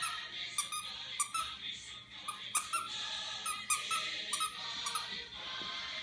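Plush dog toy squeaking again and again as a Shih Tzu puppy chews it: about ten short, high squeaks at irregular intervals, some close together in pairs.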